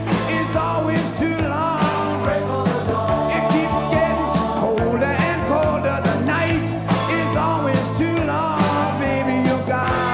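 Rock music from a full band with drums, bass, guitars and keyboards, playing steadily with no clearly sung words.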